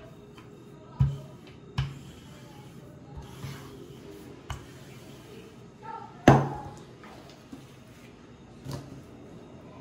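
Wooden rolling pin and bread dough knocking and thudding on the table as the dough is rolled out and handled: five sharp thumps, the loudest about six seconds in.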